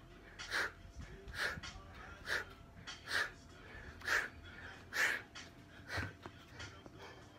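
Heavy, rhythmic breathing of a person doing decline push-ups, one short forceful breath a little under once a second.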